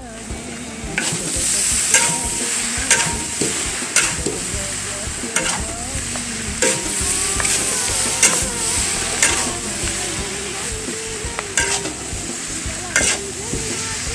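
Yellow noodles and leafy greens sizzling as they are stir-fried in a large wok. A spatula tosses and scrapes them, striking the wok with sharp clacks roughly once a second.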